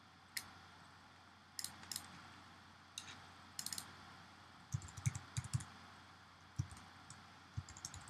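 Computer keyboard and mouse clicks: a few single clicks, then a quick run of keystrokes about five seconds in as a word is typed, and a few more keystrokes near the end.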